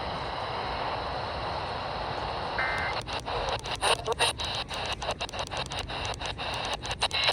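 Static hiss from a weather radio on poor reception. A short beep comes about two and a half seconds in, then the static pulses in and out about five times a second.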